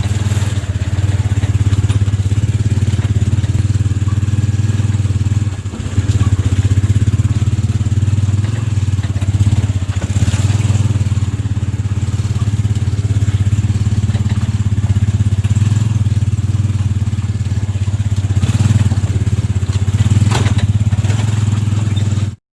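An engine running steadily with a low, even hum, dipping briefly about six seconds in and stopping suddenly near the end.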